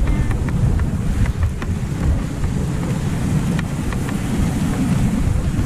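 A moving dog sled: wind buffets the microphone and the runners rumble steadily over the packed snow trail, with a few faint light ticks from the sled.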